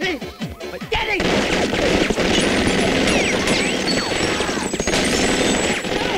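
Sustained automatic gunfire in a film soundtrack: after a few separate shots, a dense, continuous volley of rapid fire begins about a second in.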